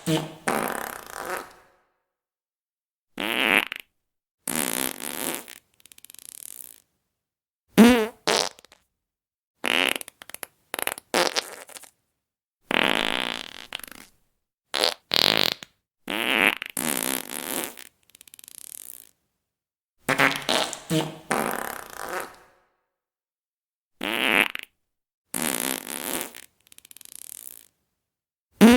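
Fart sound effects played one after another: about a dozen separate farts, some short and some drawn out for a second or two, with dead silence between them.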